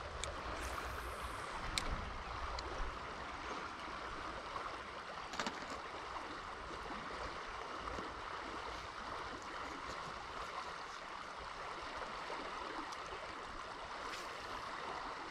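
Steady rushing and burbling of flowing river water, with a few faint clicks near the start and around five seconds in.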